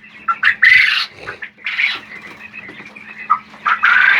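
Startled quail in cages giving several short, sharp calls, a few seconds apart. A steady low hum runs underneath.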